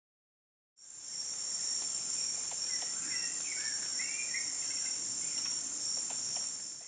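Silence, then a steady high-pitched insect chorus fades in about a second in and holds as a continuous two-pitched drone. A few faint bird chirps sound in the middle.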